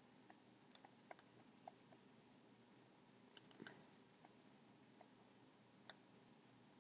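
Near silence: faint room tone with a few faint, scattered clicks and taps of a stylus as words are handwritten on a drawing tablet.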